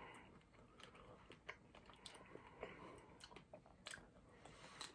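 Faint close-up chewing and biting of a chocolate-covered strawberry, the chocolate shell crunching in many small, sharp clicks.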